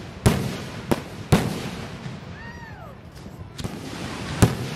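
Aerial fireworks shells bursting overhead: about five sharp bangs, three close together in the first second and a half, then a lull, then two more near the end, each trailing off in a rolling rumble.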